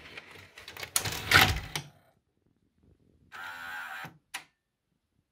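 Sony SVP-9020 S-VHS deck's cassette loader taking in a VHS tape: plastic clatter and clunks as the cassette is pushed into the slot and gripped. After a short pause a small motor whirs for about a second and stops with a click, the mechanism working under its repaired power supply.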